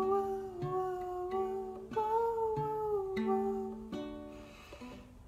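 Ukulele being plucked in a slow chord pattern while a woman hums a wordless melody over it in long held notes. Near the end the humming stops and the playing trails off into a few quieter plucked notes.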